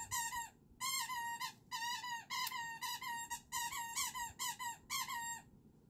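A puppy whining: a quick string of about a dozen short, high-pitched whines that bend up and down in pitch, stopping shortly before the end.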